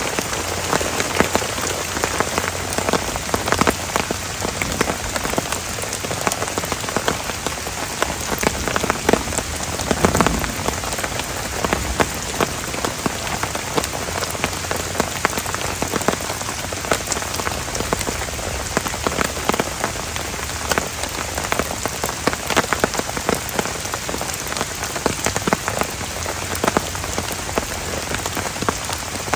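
Heavy rain falling steadily, with a dense, even hiss and many separate drops striking close by. A brief louder spell comes about ten seconds in.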